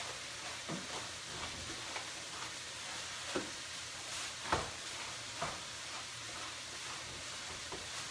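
Chopped chicken breast, onion and garlic sizzling in olive oil in a hot pan: a steady frying hiss with a few short knocks and clicks, the loudest about four and a half seconds in.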